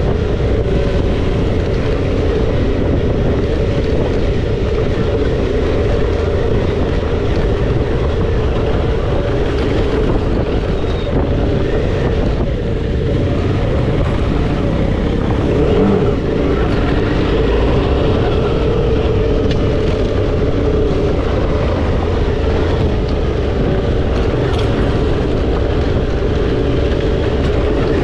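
Suzuki V-Strom 650 XT's 645 cc V-twin engine running steadily at trail-riding pace, with heavy wind rumble from riding.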